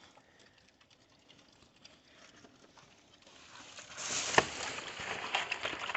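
Near silence, then from about four seconds in, piglets eating: soft crunching and scattered sharp clicks over a hiss.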